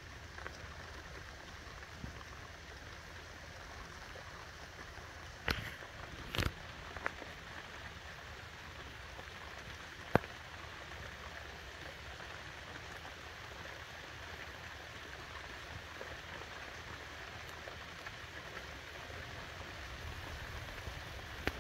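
Steady rain falling, an even hiss, with a few sharp taps about five and a half, six and a half and ten seconds in.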